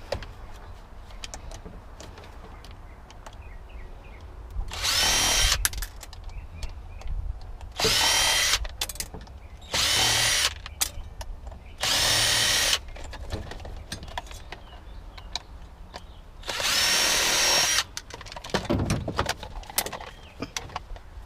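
Electric drill-driver run in five short bursts of about a second each, its motor whining steadily, as it backs screws out of scrap during a teardown. Light clicks and handling of parts come between the bursts.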